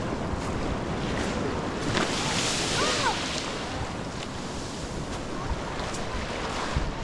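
Ocean surf washing onto the beach, a steady rush with one wave's wash swelling about two seconds in and fading a second or so later, and wind rumbling on the microphone.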